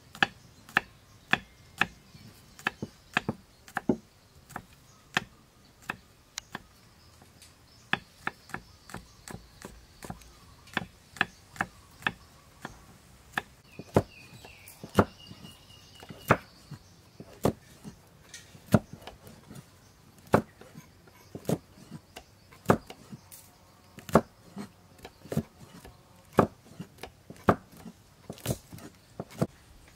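Knife and then a cleaver chopping garlic cloves and then red chillies on a thick round wooden chopping block: sharp single knocks of the blade on the wood, irregular, about one or two a second.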